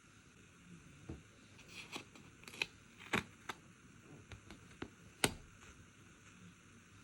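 Stickers and paper being handled: light, irregular taps and clicks with soft paper rustles, the sharpest clicks about three and five seconds in.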